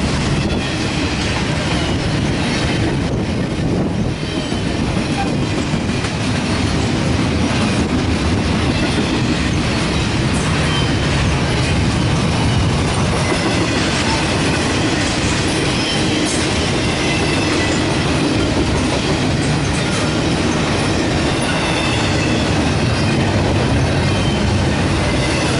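Double-stack intermodal train's well cars rolling past at speed: a loud, steady rumble of steel wheels on the rails, with faint high wheel squeals now and then.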